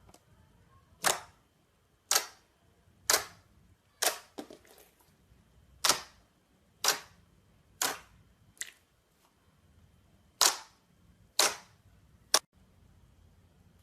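Slime being pressed and played with, giving sharp pops about once a second, around a dozen in all, each dying away quickly.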